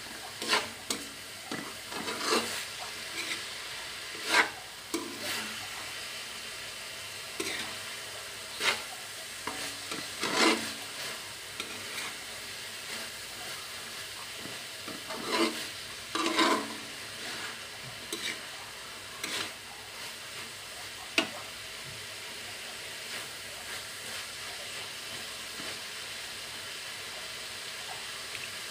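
Tuna and diced vegetables sizzling in a wok while a metal spatula stirs and scrapes the pan, giving irregular scrapes and knocks over a steady frying hiss. The scraping is busiest in the first half and sparser later, with one sharp tap of the spatula about two thirds of the way through.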